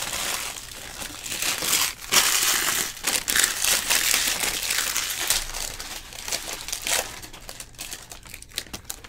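Foil wrappers of 2020 Bowman Jumbo card packs crinkling and tearing as packs are ripped open by hand. The crackle is dense for most of the stretch and turns quieter and patchier near the end.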